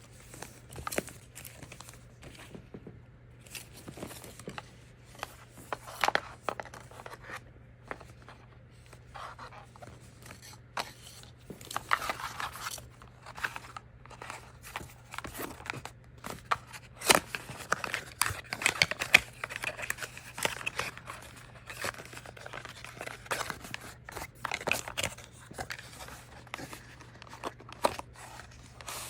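Product packaging being unboxed by hand: irregular crinkling and tearing of plastic and paper with scattered clicks and taps, busiest about twelve seconds in and again a few seconds later.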